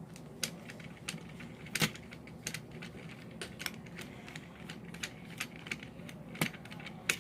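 Small irregular clicks and ticks of a screwdriver backing screws out of the plastic shell of a remote-control Trackmaster Thomas toy engine, with a couple of sharper clicks along the way.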